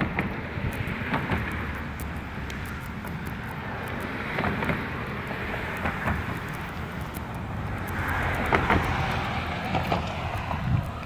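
Road traffic going by: several cars pass one after another, each rising and fading as it goes.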